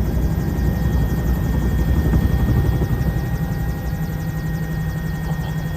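Twin-engine helicopter at full rotor speed just after lift-off, heard from inside the cabin: a steady heavy low rumble of rotor and engines, with a thin steady turbine whine above it.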